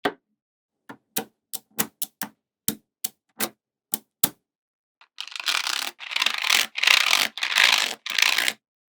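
Small neodymium magnetic balls snapping onto each other one at a time, about a dozen sharp clicks, then a rapid rattling clatter of many balls in four bursts over the last few seconds.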